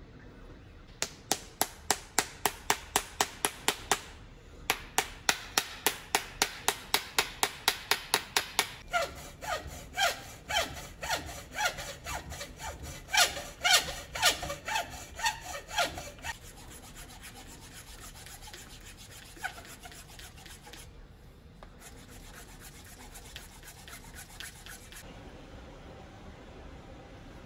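Hacksaw sawing in quick, even back-and-forth strokes, about four a second, with two short breaks in the first nine seconds. About sixteen seconds in, the strokes turn much lighter, and they stop about twenty-five seconds in.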